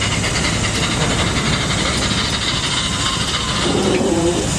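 Steam engine running with a steady loud hiss of steam.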